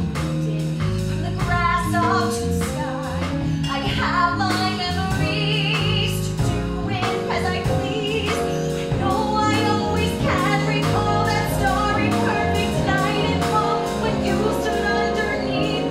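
A woman singing a musical-theatre song solo over instrumental accompaniment.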